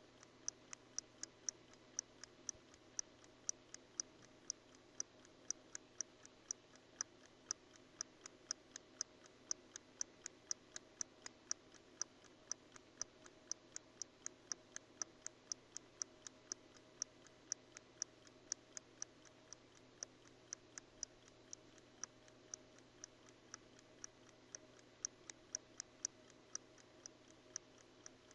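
Vintage mechanical pocket watch ticking in a fast, even rhythm of sharp, faint clicks. The owner thinks the movement may have a slight extra tick.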